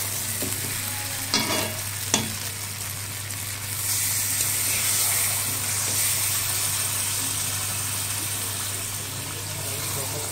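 Chicken, chickpeas and potatoes sizzling in oil in a metal kadai, the masala fried down until the oil has separated, while a metal spatula stirs and scrapes the pan with two sharp scrapes early on. A few seconds in, water poured in from a bottle makes the sizzle louder for several seconds.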